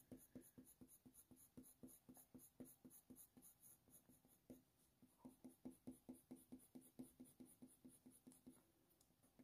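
Faint scratch of a Faber-Castell Polychromos coloured pencil stroking across hot-press watercolour paper, in short quick strokes about four a second, with a brief pause a little before the middle.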